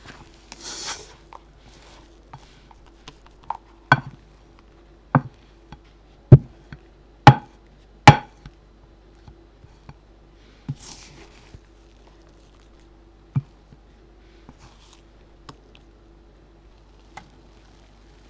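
Rubber spatula folding thick cake batter in a glass bowl, with a soft scraping sound. Then comes a string of sharp knocks about a second apart, from about four to eight seconds in, and a few softer knocks later.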